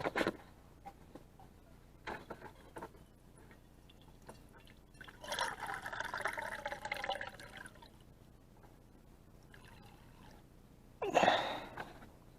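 Water being poured out for about two and a half seconds, about five seconds in, presumably the water just boiled in the Trangia pot. It is framed by short handling knocks, with a louder brief sound near the end.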